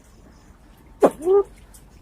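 Sempidan biru fireback pheasant calling: a sharp snap about a second in, followed at once by a short note that rises and falls. It is one call in a regularly repeating series used as a lure.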